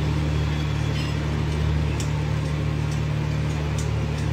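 Steady low mechanical drone of running machinery, unchanging throughout, with a few faint clicks.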